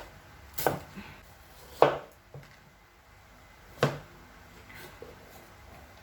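Kitchen knife chopping through white onion onto a cutting board: three sharp knocks about a second or two apart, the second the loudest, with a couple of fainter taps.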